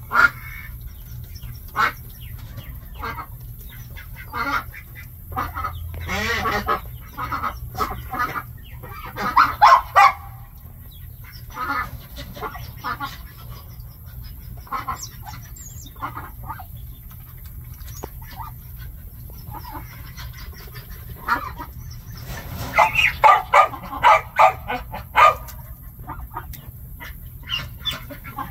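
Ducks quacking in short calls, scattered throughout, with two louder runs of rapid calls: one about a third of the way in and one near the end.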